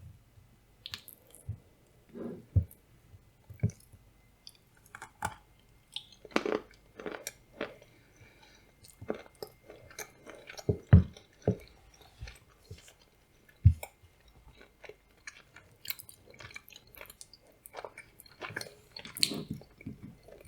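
A person chewing blueberry soufflé with nuts close to the microphone: irregular crunches of the nuts between softer mouth sounds, with two sharper crunches about halfway through.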